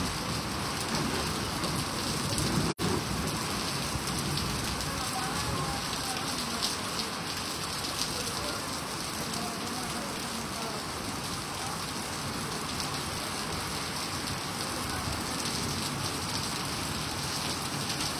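Heavy rain falling steadily onto a flooded paved street, an even hiss of drops splashing into standing water. The audio cuts out for an instant about three seconds in.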